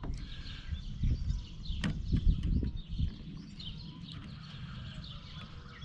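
Handling noise from a chainsaw's plastic choke lever being squeezed and worked into the carburetor: a few dull bumps and knocks, with one sharp click about two seconds in. Faint bird chirps sound behind it.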